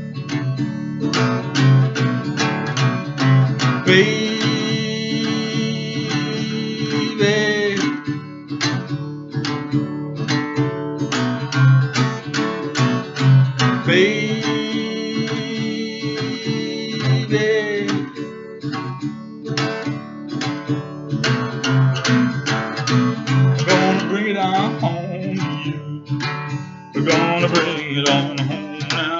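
Acoustic guitar strumming a blues rhythm while a harmonica plays: two long held chords, each lasting about three and a half seconds, then wavering, bent notes near the end.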